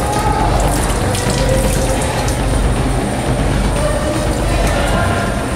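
Bathroom faucet running steadily into the sink.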